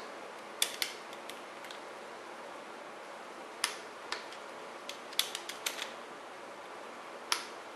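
Ratchet and torque wrench on the cam sprocket bolts as they are run down and torqued to 45 ft-lb: scattered sharp metallic clicks, a quick cluster of them about five seconds in.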